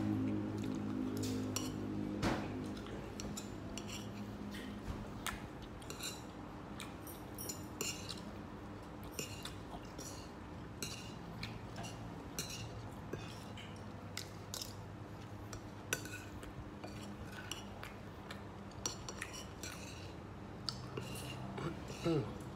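Spoons and forks clinking against plates during a meal, in scattered light clicks throughout, over a low steady hum that is strongest in the first few seconds.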